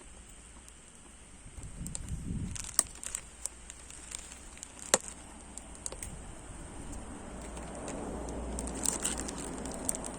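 Firewood burning in a stainless-steel shichirin, crackling with scattered sharp pops over a low rushing of the flames.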